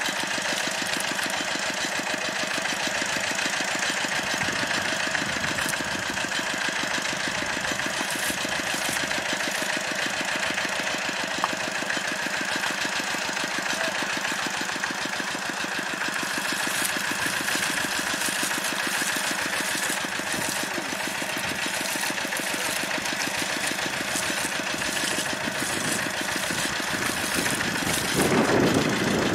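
Engine of the pump that drains the pond, running steadily with a fast, even knocking beat. A louder noise joins near the end.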